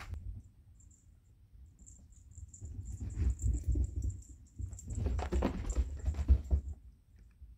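House cats' paws scampering and scrabbling on carpet and furniture as they chase a laser dot, in two busy bouts of scratchy rustling over soft thumps, the second near the end.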